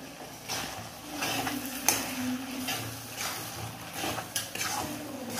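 A spatula stirring and scraping a thick pork curry with fresh coriander around a deep kadai pan, in short strokes about twice a second, with one sharp clink against the pan a little under two seconds in.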